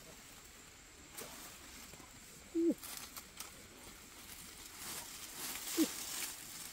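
Leaves and twigs rustling and snapping as foliage is picked by hand from a bush. Two short low calls from an animal, about three seconds apart, stand out above the rustling.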